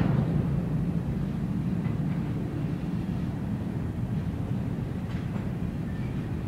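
Freight train rolling past: a steady low rumble of steel wheels on rail, with a few faint clicks from the wheels over rail joints.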